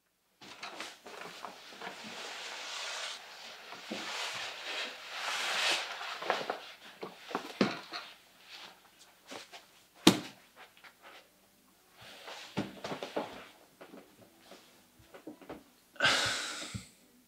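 Rustling and shuffling of a person handling soft toys and settling onto a pool table, with a sharp knock about ten seconds in and a short loud rush of noise near the end.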